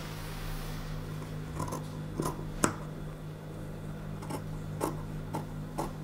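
Paper pattern pieces being handled and worked on a table: several faint, scattered taps and rustles over a steady low hum.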